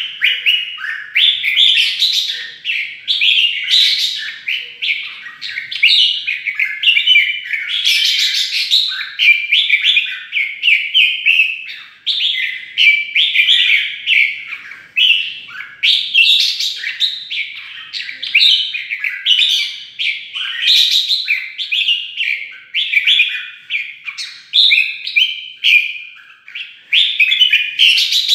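Red-whiskered bulbul singing without pause: a rapid stream of short, bright whistled and warbled phrases, its agitated competitive 'fighting' song.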